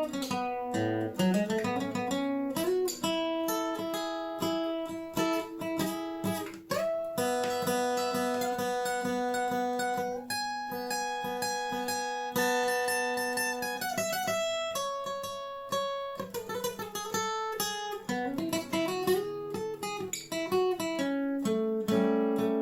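Washburn WD11SCE acoustic-electric guitar played as a sound test after a setup: a plucked melody of single notes and chords, some notes left ringing for a few seconds.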